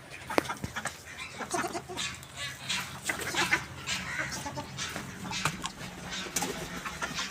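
Poultry in the pens calling: irregular short clucks and squawks, one after another, over a low steady hum.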